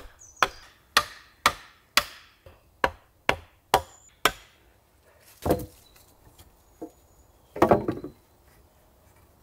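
A small axe striking wooden stakes, about nine sharp knocks at roughly two a second, driving them into soft ground to peg down a log bed. Two longer, duller noises follow, about halfway through and near the end.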